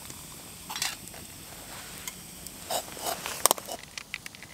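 Campfire crackling with a steady hiss and scattered sharp snaps. Then a short run of knocks and clinks, the loudest about three and a half seconds in, as the metal camping mug of hot water is lifted off the fire and set down on dry leaves.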